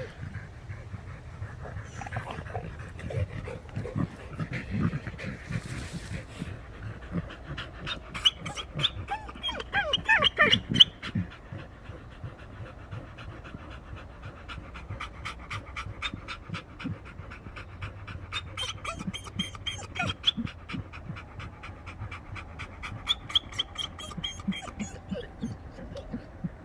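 American Pit Bull Terriers panting hard and fast from the exertion of digging out a burrow, several breaths a second. There is a louder burst of sound about ten seconds in.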